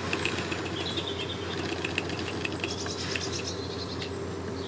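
Mamod SE1 toy steam engine spitting and ticking irregularly over a steady low hum, as it gets up steam just before it starts running.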